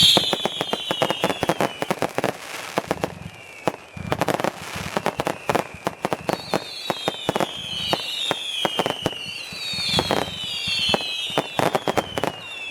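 Fireworks going off: dense, rapid crackling pops, with shrill whistles that fall in pitch and repeat every second or two, mostly in the second half.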